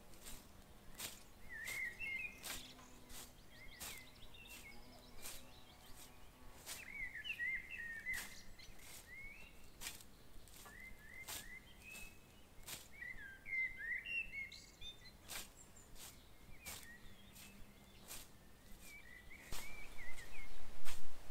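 Songbirds singing short warbling phrases every couple of seconds, with scattered sharp ticks. Near the end, louder uneven swishes begin as a scythe cuts through grass.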